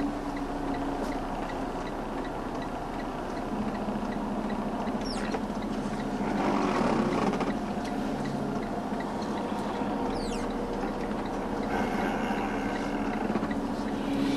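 Semi-truck's diesel engine running at low revs while the truck reverses into position, heard from inside the cab as a steady hum that swells briefly midway. A faint regular ticking sounds about twice a second throughout.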